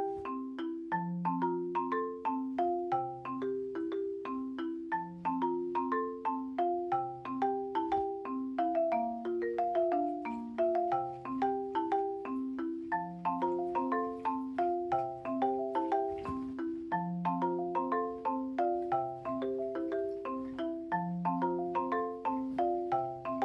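Background music led by a marimba-like mallet instrument: a steady, bouncy run of short notes over a low bass note about every two seconds.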